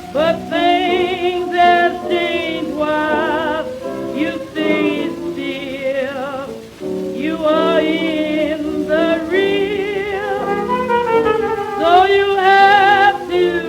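Music from a 1926 blues recording on a 78 rpm record: a small jazz band with a lead melody in heavy vibrato over the accompaniment. The old recording's treble is cut off sharply.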